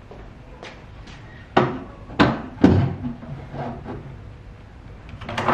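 Wooden plank being set down on a wooden workbench and mitre saw: a few light knocks, then three loud wooden thuds between about one and a half and three seconds in.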